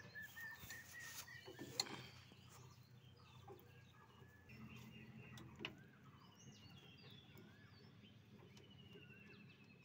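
Near silence, with faint bird calls throughout. Two sharp clicks stand out, about two seconds in and just before six seconds, from a spanner working the hydraulic hose union on a tractor's power-steering cylinder.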